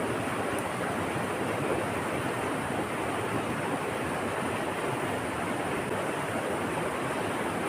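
Steady rush of moving water, an even hiss that holds at one level with no breaks.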